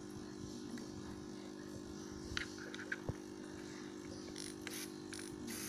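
Handling noise from a DSLR camera and its bag: a few light clicks about halfway through and brief rustles near the end, over a steady low hum.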